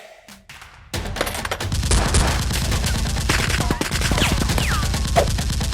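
Rapid, continuous gunfire: a dense run of overlapping shots that starts about a second in after a brief lull and keeps going at a steady level.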